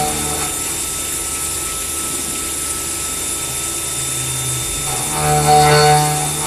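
Datan ME745 vertical machining center milling a metal workpiece with an end mill under spraying coolant: a steady hiss, with the cutter's pitched whine fading soon after the start and coming back strongly about five seconds in.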